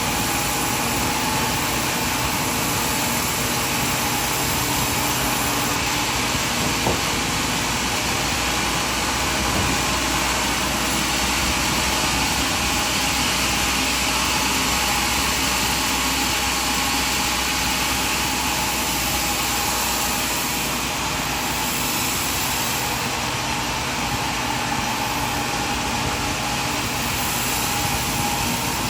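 Sawmill machinery running steadily, a constant engine-driven noise with no change in load, and a single short click about seven seconds in.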